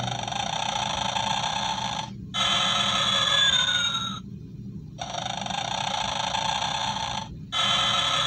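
Gemmy animated snoring Santa toy playing its recorded snoring through its small built-in speaker. There are two snores, each a raspy stretch followed by a louder one with a whistle that falls in pitch, with brief pauses between them.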